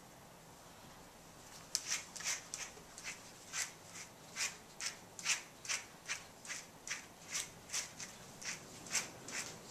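A grooming brush stroked repeatedly through a dog's long coat, a run of short scratchy swishes about two or three a second, starting after a quiet second or two. The strokes are brushing absorbent cleaning powder back out of the coat.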